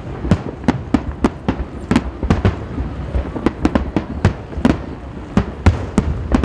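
A fireworks display with shells bursting in a rapid, irregular string of sharp bangs, about three a second, over a continuous low rumble.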